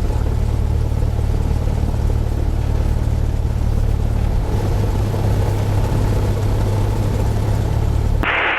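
Cessna 172's piston engine and propeller running steadily at low taxi power, a loud even drone. It cuts off sharply near the end, where a radio voice comes in.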